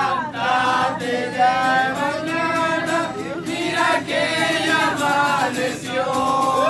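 A group of people singing together, accompanied by a strummed acoustic guitar.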